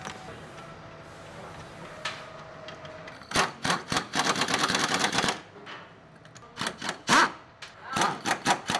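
Rapid metallic clicking of a wrench tightening the bolts of a new engine mount. A dense run of clicks starts about three seconds in and lasts about two seconds, followed by two shorter bursts of a few clicks each.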